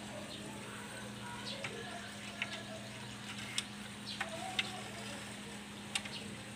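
A few sharp, separate clicks and taps as a white plastic stopper is handled and fitted into the aluminum top track of a sliding screen door, over a steady low hum.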